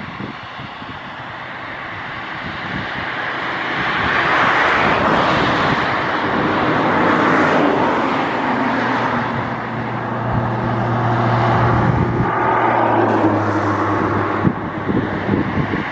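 Waterfall rushing, a steady roar of falling water that swells about three seconds in and then holds. A low steady hum runs under it for a few seconds past the middle.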